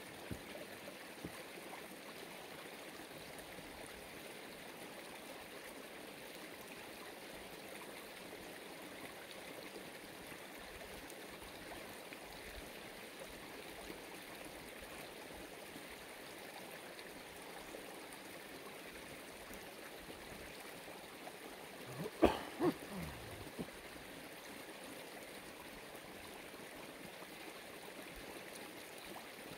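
Steady rush of flowing water from a stream, with one sharp, loud sound about two-thirds of the way through.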